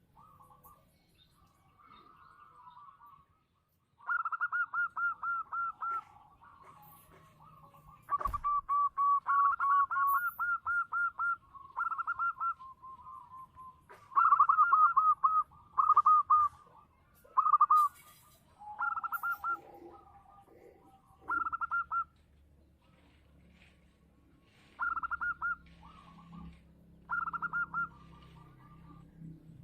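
Zebra dove (perkutut) singing: phrase after phrase of rapid, trilled cooing notes, each phrase lasting a second or two with short gaps between. A single sharp knock comes about eight seconds in.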